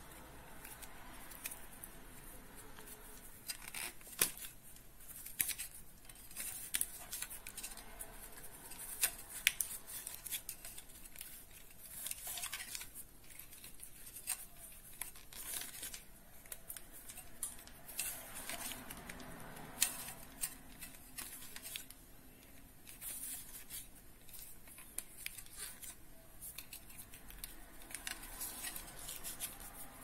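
Irregular scraping and rustling with scattered sharp clicks as stiff insulated electrical wires are pushed into a wall box behind a plastic switch module.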